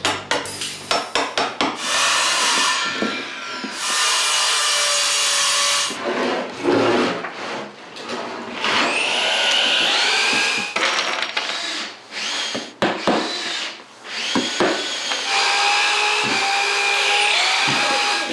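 Wood-floor work with hand and power tools. First a quick run of sharp taps and scraping as a chisel cuts into the wooden floor. Then a few seconds of rasping wood noise, and later a power drill driving screws into a plywood subfloor, its motor revving up and slowing again several times as each screw goes in.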